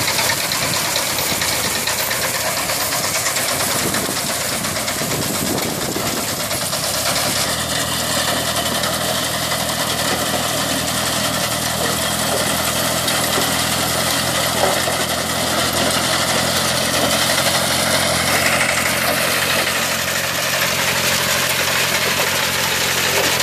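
Binder harvester's 30 HP Kubota water-cooled diesel engine running steadily, with mechanical noise from the machine. Its low engine tone becomes clearer about seven seconds in.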